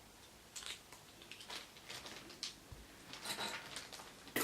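Small plastic doll accessories being twisted off their moulded runner by hand: scattered faint clicks and rubbing of plastic, busier near the end, then a sharp snap as a piece breaks free.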